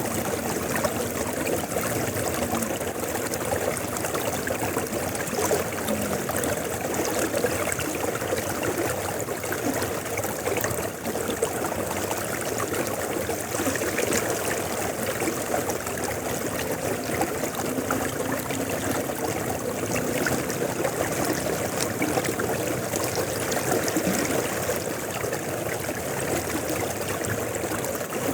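River water flowing steadily, with a continuous rush and a faint gurgle.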